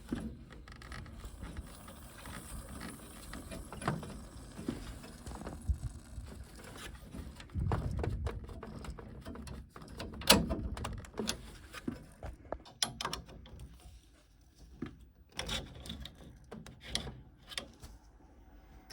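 Scattered clicks, taps and knocks of hand tools and plastic and metal fittings as the water-side parts of a Worcester Greenstar combi boiler are taken apart, with a few louder knocks about halfway through.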